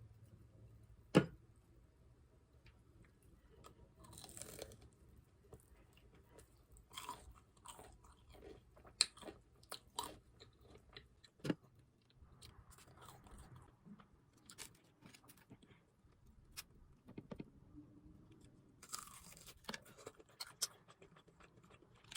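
Close-up chewing and biting of crispy fried food: irregular crunches and wet mouth clicks, with a sharp click about a second in.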